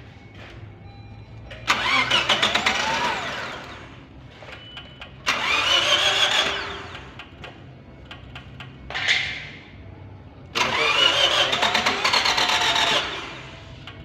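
A car's starter cranking the engine in three long attempts of about two seconds each, with a short one in between, each ending without the engine settling into a run. The mechanic suspects a cutout is stopping it from starting.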